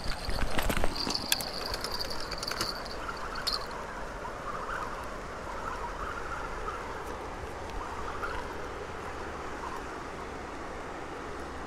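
Steady rush of water spilling over a low river dam. In the first three seconds there are clicks and knocks of fishing rods being handled at their bank holders, over a high thin buzz that stops about three seconds in.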